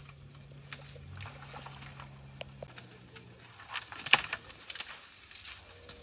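Dry twigs and brush crackling and snapping in irregular clicks, the sharpest snap about four seconds in, over a steady low hum that stops a little before halfway.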